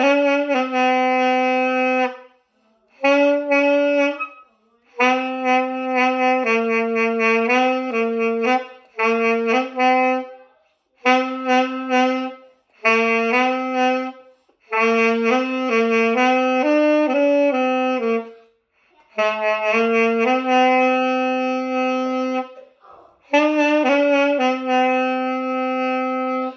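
Unaccompanied saxophone playing a melody in short phrases of one to three seconds, with brief silent breaks for breath between them.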